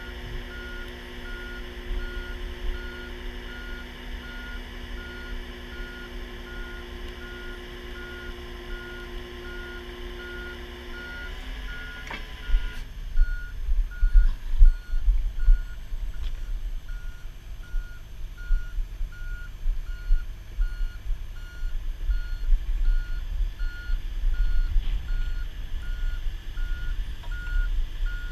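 Backup alarm beeping in a steady, evenly spaced pattern, over a diesel engine running that cuts off about twelve seconds in. A low, uneven rumble follows.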